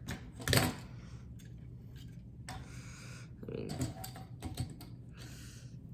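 Plastic clicks and clatter of small toy robot figures being handled and posed on a hard surface, with a louder knock about half a second in and scattered lighter clicks later.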